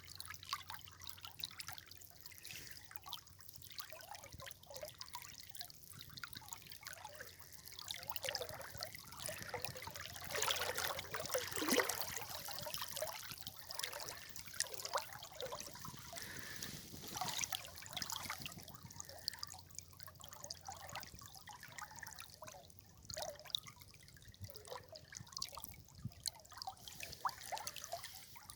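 River water trickling and splashing in many small, uneven gurgles, with a busier, louder stretch about ten to twelve seconds in.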